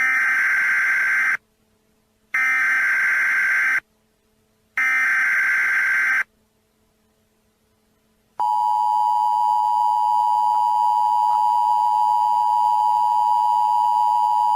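Emergency Alert System header: three short bursts of warbling digital data tones, each about a second and a half long with a pause between them. About eight seconds in, the long, steady two-tone attention signal begins and holds at an even level.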